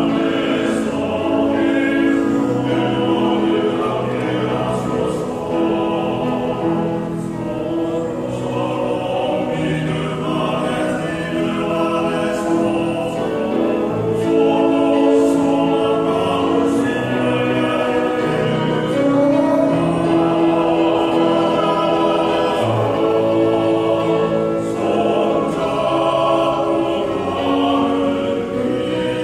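Church vocal ensemble singing a hymn in parts, with long held notes that change every second or so.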